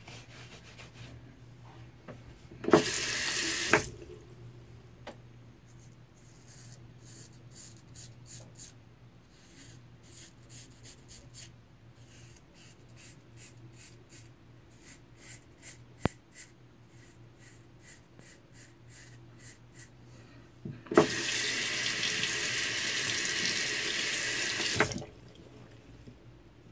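A bathroom tap runs into the sink twice, once for about a second and later for about four seconds. Between the two, a J.A. Henckels straight razor makes a run of short, quiet scraping strokes through lather and stubble.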